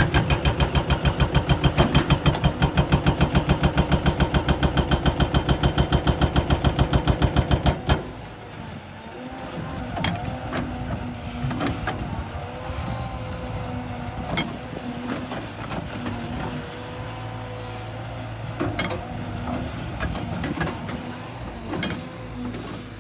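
Hydraulic breaker hammer on a Cat 320 excavator pounding rock in rapid, evenly spaced blows, several a second, stopping abruptly about eight seconds in. After that the excavator runs on at a steady hum, with a few scattered knocks.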